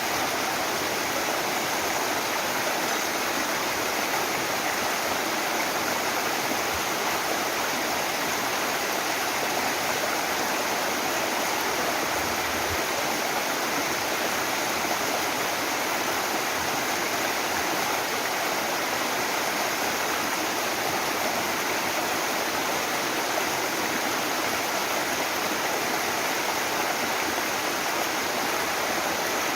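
Mountain waterfall heard close up: water falling and rushing in a steady, unbroken wash of sound.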